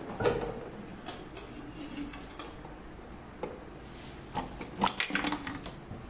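Scattered knocks and plastic clatter as a top-load washing machine's pulsator (wash plate) is worked loose and lifted out of the steel drum. The loudest knock comes just after the start, and a cluster of knocks comes about five seconds in.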